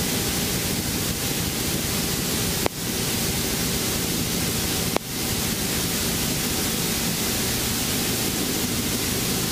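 Steady in-cabin helicopter noise: a loud, even rush of wind and rotor with a faint low hum beneath, during a practice autorotation glide toward the landing spot. Twice, about two seconds apart, a sharp click cuts in, followed by a brief drop in level.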